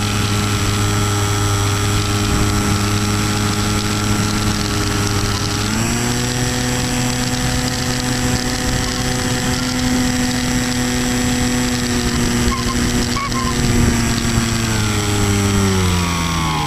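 Electric pusher motor and propeller of a Multiplex EasyStar 2 RC plane, heard from a camera on board, whining steadily over a hiss of rushing air. The motor speeds up about six seconds in and slows down again over the last couple of seconds.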